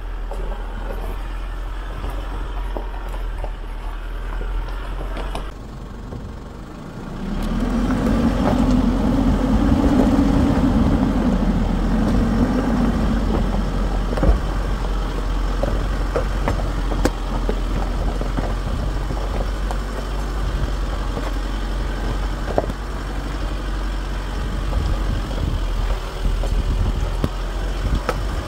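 Isuzu D-Max pickup crawling in low range over a steep, rocky, washed-out track. The diesel engine runs steadily while loose stones crackle and pop under the tyres. The engine note swells for several seconds about eight seconds in.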